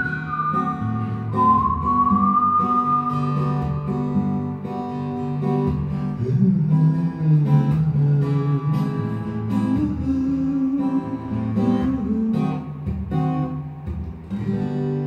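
Acoustic guitar played in a strummed and picked instrumental passage, with a whistled melody over it for the first few seconds.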